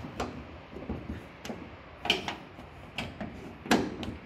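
Metal clicks and clunks of the bonnet catch on an Armstrong Siddeley Whitley being worked to release the bonnet: about ten separate sharp knocks, the loudest about two seconds in and near the end.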